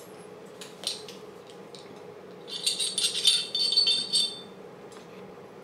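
Light clicks, then a run of metallic rattling and clinking with a high ringing edge from about two and a half seconds in until about four seconds in, as the Glock 42's barrel is worked out of its steel slide.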